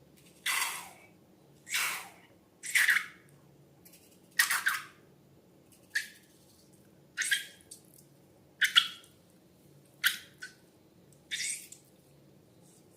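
Slime being squished and handled: about nine short wet squelches, roughly one every second or so.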